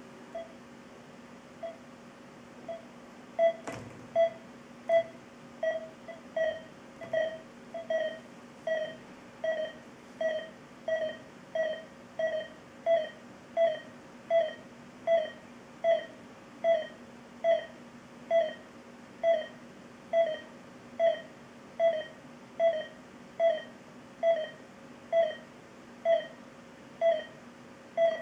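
Two Philips IntelliVue X2 (M3002A) patient monitors sounding their SpO2 pulse tones: short mid-pitched beeps, one per heartbeat, at a pulse of about 80 a minute, repeating in a steady rhythm. The beeps are faint for the first few seconds and then louder, with a single click about four seconds in.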